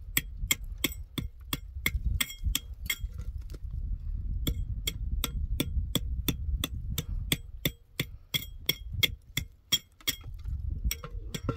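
Repeated hand-struck knocks on a hollow concrete block, about three sharp, ringing strikes a second, as the block is chipped away. The knocking pauses briefly twice near the end.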